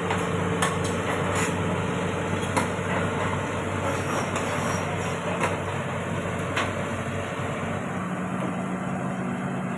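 Heavy diesel engine running steadily at a constant pitch, with a few sharp metallic knocks scattered through it.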